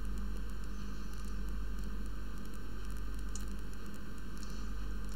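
Steady low electrical hum with even background hiss from the recording setup: room tone with no distinct event.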